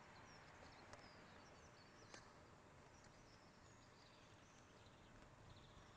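Near silence: faint outdoor ambience with distant birds chirping, and two faint clicks about one and two seconds in.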